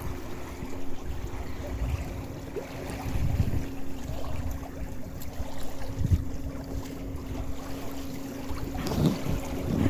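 Wind buffeting the microphone and water washing along the hull of a Windrider 17 trimaran under sail, over a steady low hum, with a few heavier gusts or wave slaps.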